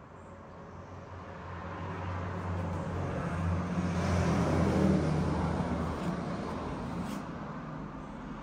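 Low rumble of a passing road vehicle, swelling to its loudest about four to five seconds in and then fading.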